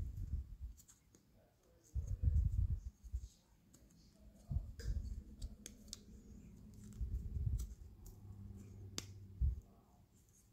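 Light scattered clicks and scraping from an old gasket being picked and scraped off a metal brake master cylinder lid by hand, with several dull bumps of handling in between.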